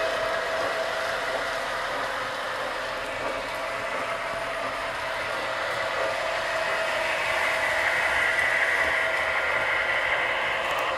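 Several O gauge three-rail model trains running at once on Fastrack: a steady mechanical whir and rattle of wheels and motors on the track, with a steady hum under it, swelling a little about seven seconds in.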